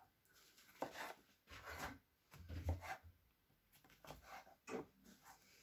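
Kitchen knife slicing white mushrooms on a plastic chopping board: a few faint, irregular taps as the blade cuts through and meets the board, with one duller knock near the middle.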